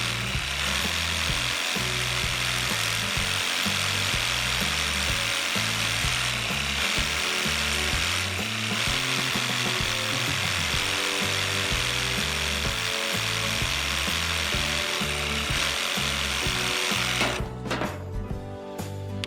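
Stanley 18-volt battery reciprocating saw cutting wood, a steady rasping run that stops about two seconds before the end, over background music with a stepping bass line.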